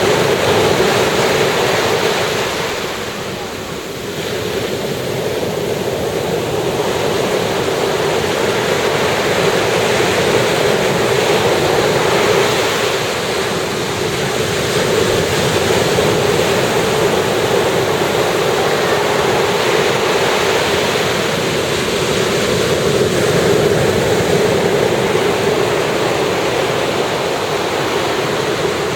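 Ocean surf on a beach: a continuous rush of waves breaking and washing in. It eases briefly about three to four seconds in, then swells back up.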